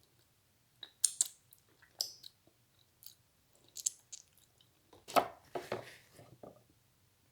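A person chewing a mouthful of food, close to the microphone: a series of short wet clicks and smacks, loudest about five seconds in.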